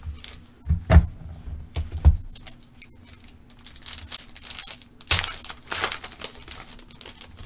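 A few dull knocks as packs are lifted from the cardboard box, then a foil trading-card pack being torn open and its wrapper crinkling. The wrapper is loudest around five to six seconds in.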